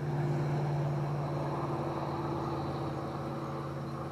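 Steady low hum of a running motor, with a fainter even hiss over it.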